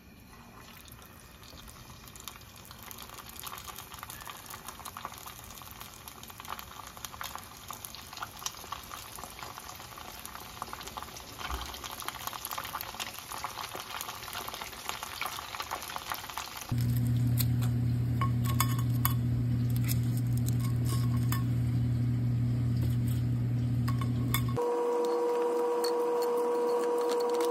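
Par-fried chicken pieces frying a second time in hot oil in a frying pan: a crackling sizzle that grows louder over the first two-thirds. Then steady low tones cut in abruptly over it, shifting to higher steady tones near the end.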